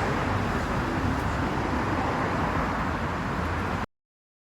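Motorcycle running along the road with steady wind and road noise and a low engine hum; the sound cuts off abruptly near the end.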